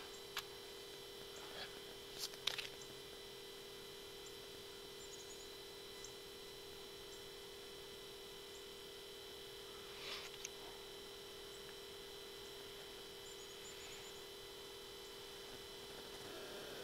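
Quiet, steady hum with a fainter high whine over it, broken by a few soft clicks and taps: a couple near the start and one about ten seconds in.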